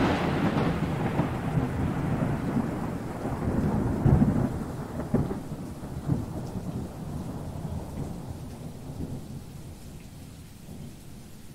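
Thunder rolling over steady rain, the low rumble swelling again about four, five and six seconds in and then slowly fading away.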